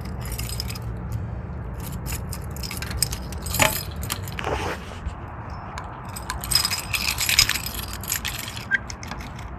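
A bunch of keys jangling on and off, over a steady low hum.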